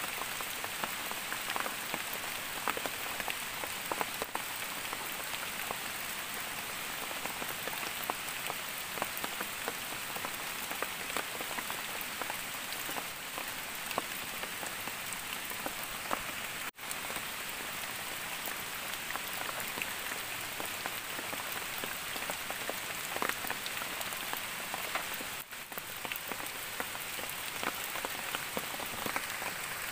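Steady rain falling, heard as an even hiss dotted with many small drop ticks. The sound cuts out for an instant a little past halfway.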